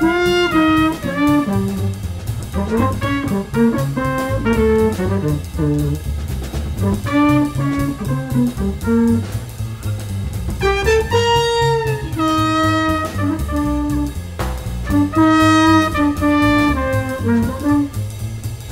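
Big-band jazz trumpet solo in fast phrases of short notes, with a trombone playing the same line along with it, over walking upright bass and drum kit.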